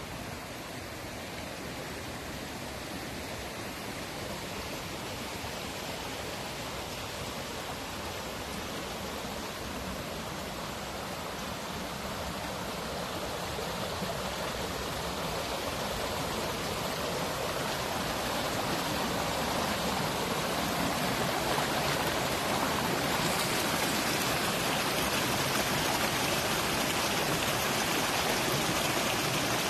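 Steady rush of running water, growing gradually louder.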